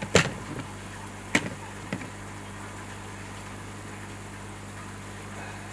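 A few sharp clicks and knocks from handling the skimmer parts and silicone tube, the first and loudest right at the start and the last about two seconds in, over a steady low hum.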